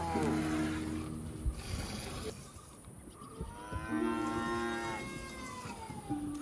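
A cow mooing: a long call rising and falling in pitch about halfway through, with the tail end of an earlier moo at the very start.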